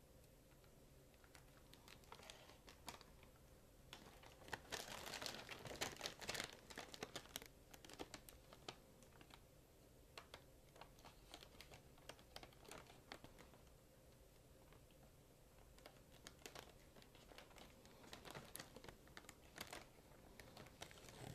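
Faint crinkling and crackling of the blimp's thin balloon envelope being handled as clear adhesive strips are pressed on to mount the gondola. The crackles come in spells of quick clicks, busiest about five seconds in and again near the end.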